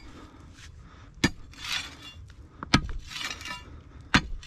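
A metal digging tool strikes hard, stony soil three times, about a second and a half apart. Each sharp strike is followed by a short rustle of loose earth and stones breaking away.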